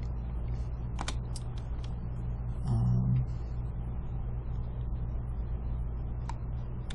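A few scattered computer keyboard and mouse clicks, a cluster about a second in and a single one near the end, over a steady low electrical hum.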